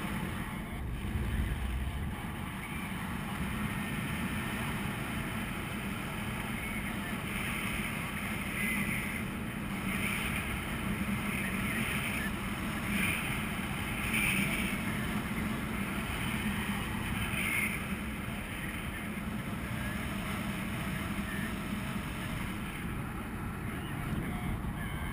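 Airflow rushing steadily over the microphone of a camera on a paraglider in flight, with a few louder gusts in the middle.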